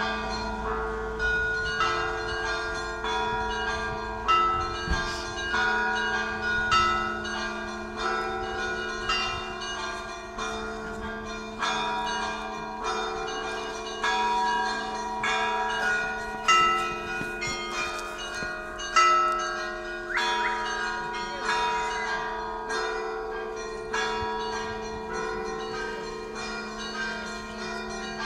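Russian Orthodox cathedral bells rung in a rhythmic peal: small bells strike over and over in a repeating pattern above the steady ringing hum of the larger bells, with louder accents every couple of seconds.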